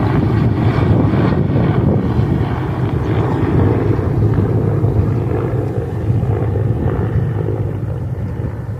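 Low-flying helicopter passing over, a steady rotor and engine drone that slowly fades toward the end.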